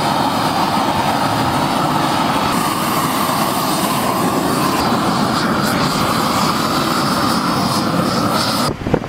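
Hand-held gas torch burning steadily, a loud, even rushing noise, as it heats preformed thermoplastic road-marking lettering to fuse it onto the painted surface. It cuts off suddenly near the end.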